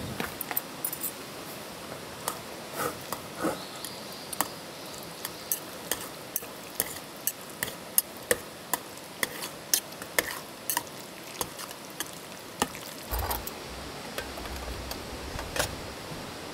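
Chopsticks clicking and scraping against a metal cook pot while noodles are stirred and lifted, a few sharp clinks a second, with a duller knock near the end.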